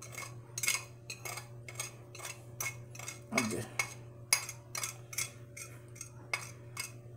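Metal fork scraping and tapping against a small plate, a quick irregular run of light clinks as salt is knocked off into a bowl of ground beef.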